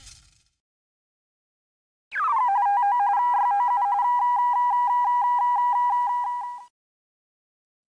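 Electronic tone sound effect: a quick downward swoop, then a fast warble between two pitches held for about four and a half seconds, like a telephone ring, stopping abruptly.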